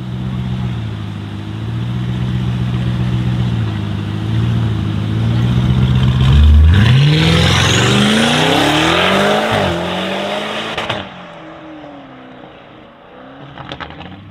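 Twin-turbo V8 of a tuned, roughly 1000 hp Audi RS6 C8 running steadily, then accelerating hard about six seconds in. Its pitch climbs through several upshifts before the sound drops away. A few sharp exhaust crackles come near the end.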